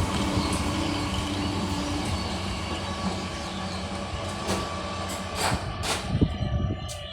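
A train running past a railway level crossing, its rumble fading steadily as it moves away, with a few sharp clicks in the second half.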